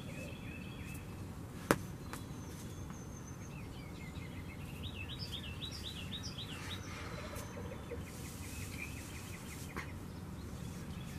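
Songbirds singing in the background: several short runs of quick, high chirping notes. A single sharp click sounds close by, about two seconds in.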